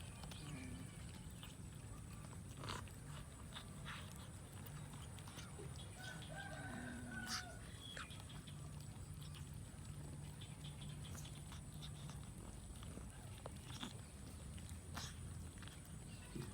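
Faint background with a steady low hum and a thin high whine. Soft scattered clicks run through it, and a brief faint animal call comes about seven seconds in.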